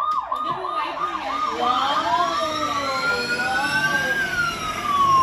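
Toy electric ride-on police car's built-in siren sound effect: a fast yelp of falling sweeps, a little over three a second, that changes about two seconds in to a slow wail rising and then falling.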